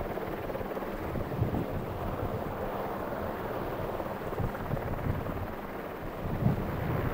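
Wind buffeting the camcorder microphone: a steady rushing noise with irregular low gusts, a few of them sharper, most strongly near the end.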